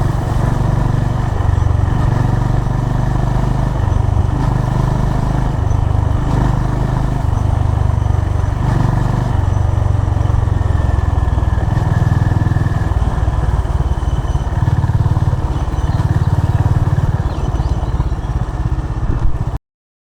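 Honda CB350 RS's air-cooled single-cylinder engine running through its stock exhaust, a low thumping note that shifts up and down in pitch with the throttle. The sound cuts off abruptly near the end.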